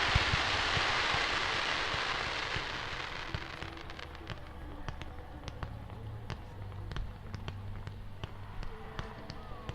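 Firework display: a dense crackling hiss, typical of crackling or glittering shell effects, fades out over the first three seconds. Scattered sharp pops and clicks follow at a lower level.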